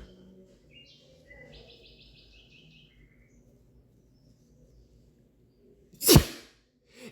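A man sneezes loudly about six seconds in, a sharp burst followed by a falling voiced tail, and a second sneeze begins right at the end. Before that, faint high bird chirps, about a second in and again in a quick run of short notes.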